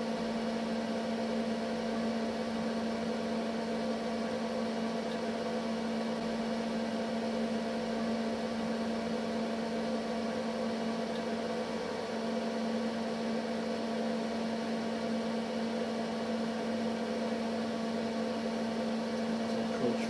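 Steady mains electrical hum from the variac and dimmer circuit feeding two incandescent lamps: a constant low buzz with many overtones, unchanged as the dimmer is turned.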